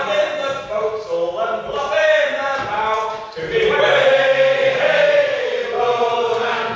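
A group of men singing a sea shanty together, unaccompanied, in long held notes with a short break between phrases about three seconds in.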